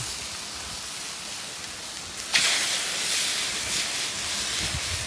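Teriyaki-marinated chicken thighs sizzling on the hot grate of a charcoal grill. About two and a half seconds in, the sizzle suddenly grows louder as another raw piece goes onto the grate.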